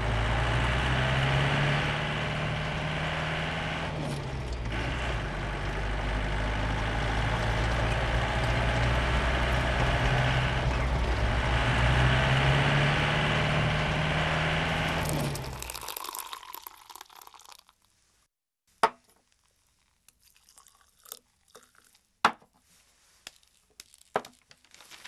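Open jeep's engine running as it drives past on a road, the engine note rising and falling twice, then fading away. After it, a few sharp scattered clicks and knocks.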